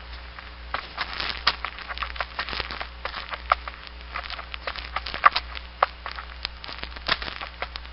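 Irregular, dry clicking and crackling, many small sharp ticks at an uneven pace, over a steady low hum.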